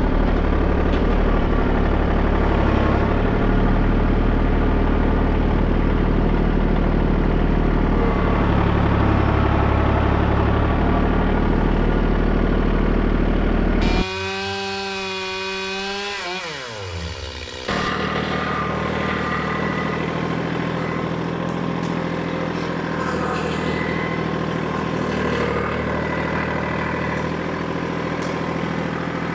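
An engine running steadily. About halfway through the sound changes abruptly, and the engine's pitch falls for a few seconds as it slows down. Then a different steady engine sound comes in suddenly.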